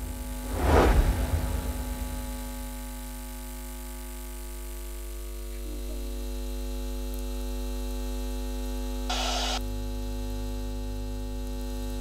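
A steady electronic hum made of several level tones, like a sound-design drone. A swooshing rush fades out about a second in, and a short burst of hiss comes at about nine seconds.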